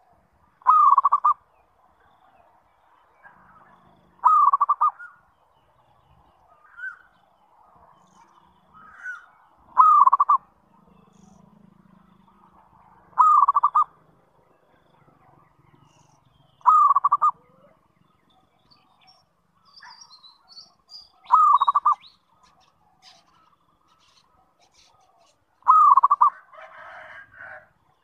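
Zebra dove (perkutut) cooing: seven short, quick trilled coos, repeated every three to five seconds, with faint chirps between them.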